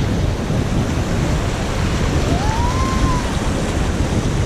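Rushing whitewater of a river under a raft, with wind buffeting the microphone: a steady, loud rush. About halfway through, a faint short rising tone sounds.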